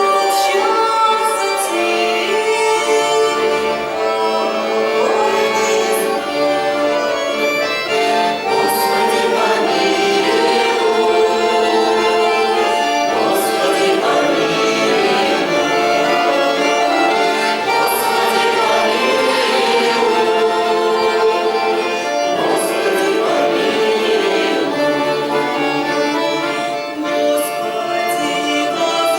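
Russian folk-ensemble instrumental music led by an accordion (bayan) playing sustained chords and a melody. A bright, light strike sounds roughly every four to five seconds.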